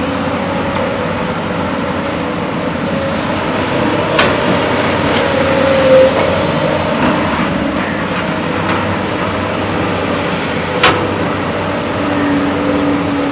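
JCB excavator's diesel engine running steadily under working load, its pitch bending briefly about six seconds in, with two sharp metallic knocks about four and eleven seconds in.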